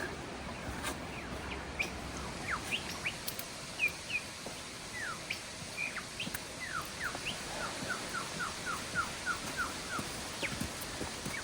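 Birds calling: scattered short, high, downward-sliding chirps, then a quick run of about eight falling notes, over a steady background hiss.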